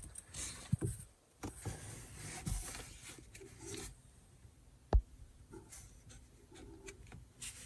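Hands handling a removed plastic dashboard speaker grille cover: light rubbing and small plastic clicks, with one sharp click about five seconds in.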